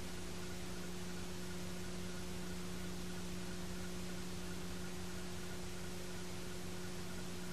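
Steady electrical hum with a second, higher hum tone over an even hiss, unchanging throughout; no game or crowd sound stands out.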